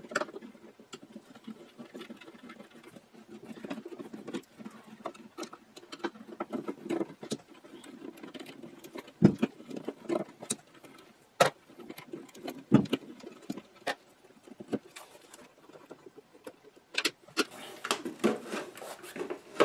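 Screws being backed out of a Bakelite radio cabinet with a hand screwdriver: an irregular, scratchy rasping from the turning driver, broken by several sharp clicks and knocks as screws and the cabinet are handled.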